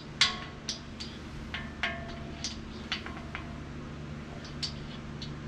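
Light metal-on-metal clicks and clinks, about eight of them, the loudest about a quarter second in, some ringing briefly: a dial bore gauge being worked into the main bearing bore of a 12-valve Cummins block with its main caps torqued on. Under them runs a steady low shop hum.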